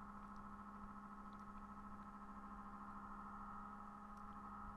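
Faint steady electrical hum: a low tone with a higher buzzing band above it, unchanging throughout.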